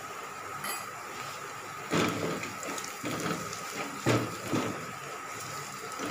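Onions, garlic-ginger and green chilli sizzling in hot oil in a steel pan, with a spatula scraping and stirring against the pan several times from about two seconds in.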